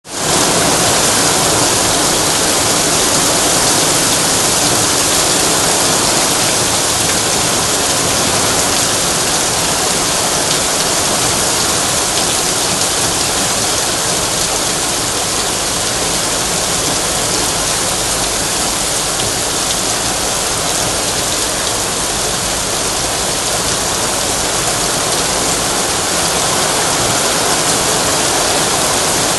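Heavy rain pouring onto a wet asphalt street: a loud, steady rush of drops splashing on the road.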